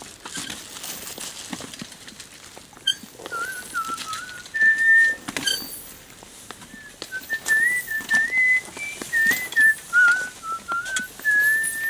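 A person whistling a tune: a single clear tone stepping up and down in pitch, starting about three seconds in, over light knocks and rustling.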